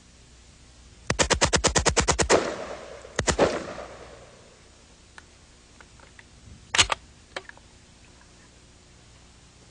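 Fully automatic AK-47 rifle (7.62×39 mm) firing a burst of about a dozen shots at roughly ten rounds a second from one pull of the trigger, then a short second burst of about three shots. A single sharp bang follows a few seconds later, with a couple of faint clicks.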